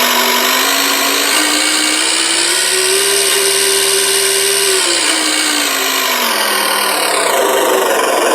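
Synthesized diesel truck engine sound from an RC car sound module, played through its single small speaker. It idles, revs up over about two seconds as the throttle is applied, holds the higher pitch, then falls back to idle near the end.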